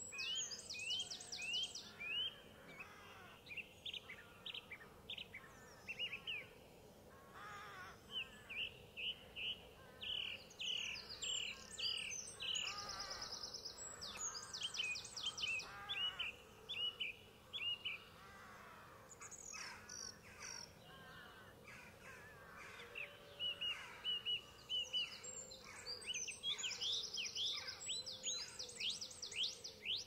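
Several songbirds singing together: rapid runs of high chirps and buzzy trills, busiest near the start, in the middle and near the end, with a quieter spell between.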